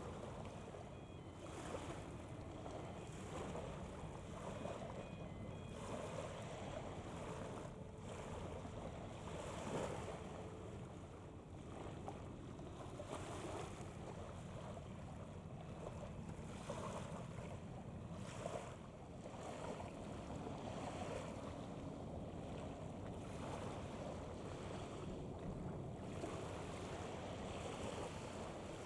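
Waterside wind gusting on the microphone over waves washing, rising and falling in gusts, with a steady low rumble underneath.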